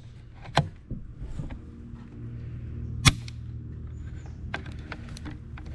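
Bolt of a Remington M1903A3 .30-06 bolt-action rifle being worked by hand: a few sharp metallic clicks, the loudest clack about three seconds in, over a steady low hum.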